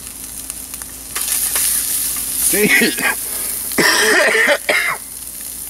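Bacon, habanero and onion sizzling in a skillet on a propane camp stove, stirred and scraped with a stainless steel spatula. The sizzle grows louder about a second in. A man's voice breaks in twice near the middle.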